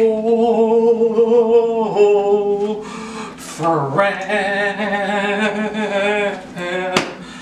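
A man singing, holding a long note for about two seconds, then after a short phrase and a brief dip, a second long note with a wavering pitch.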